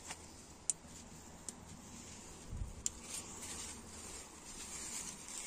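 Faint rustling of bean leaves brushing against the phone's microphone as it moves through the plants, with a few light ticks and a soft low bump about two and a half seconds in.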